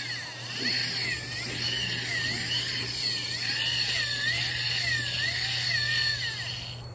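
Fishing reel drag buzzing as line is stripped off fast, its whine wavering up and down in pitch and fading out near the end.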